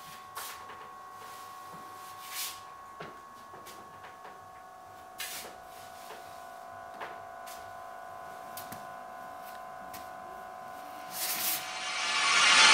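A steady hum of several tones with scattered soft clicks and creaks, then a rushing noise swell that rises sharply in the last second and a half.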